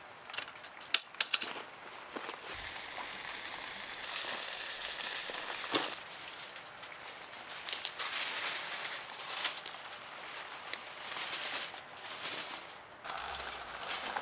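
Aluminium foil crinkling and rustling as the foil tent over a charcoal-grilled beer-can chicken is handled, with a cluster of sharp clicks in the first second and a half and a few more scattered through.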